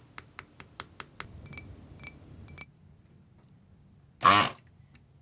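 Desoldering work on a circuit board: a quick run of light ticks, then three small metallic clinks that ring briefly. About four seconds in there is one short, loud, rasping sound.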